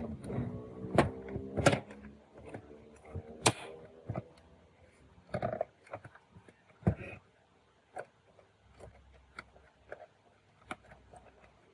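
Irregular sharp clicks and light knocks, some loud, with short quiet gaps between them. A steady pitched hum fades out over the first two seconds.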